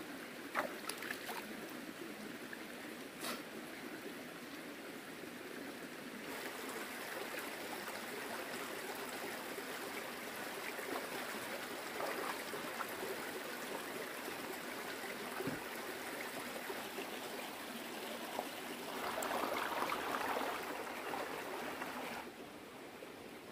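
Steady rush of flowing water, with a few light knocks in the first few seconds and a louder stretch near the end.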